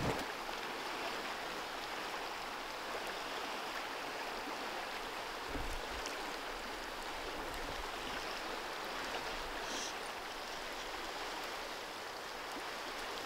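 Steady rush of river water running through a riffle on the Klamath River. A short knock comes right at the start.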